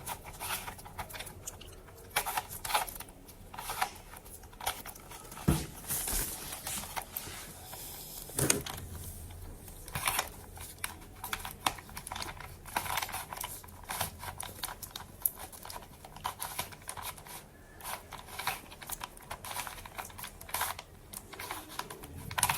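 Rubik's Cube being turned rapidly by hand: a continuous, irregular run of plastic clicks and clacks as its layers rotate.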